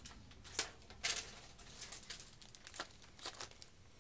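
Packaging crinkling and rustling in several short bursts as it is handled, the strongest just after the first second.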